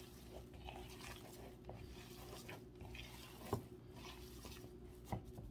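Hands kneading raw ground beef and sausage meat in a mixing bowl: faint wet squishing and squelching, with a couple of soft knocks.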